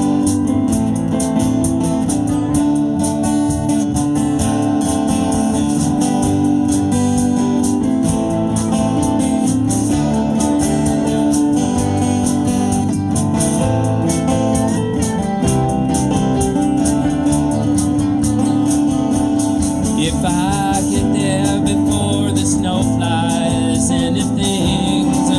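Live band music, a steady instrumental passage, with a voice coming in singing about twenty seconds in.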